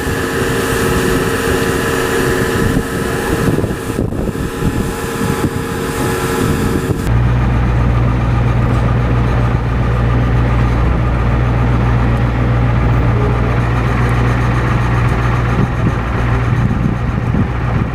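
A fertilizer loading conveyor running with several steady tones as dry fertilizer pours into a fertilizer buggy. About seven seconds in, this gives way to a vehicle engine running with a steady low hum, heard from inside the cab.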